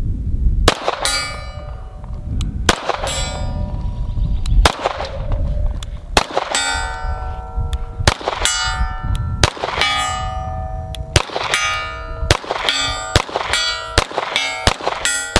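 A string of shots from an Atlas Gunworks Erebus 9mm 2011 pistol, each followed by the ringing clang of a steel target hit at 75 yards. The shots come one to two seconds apart at first and faster near the end.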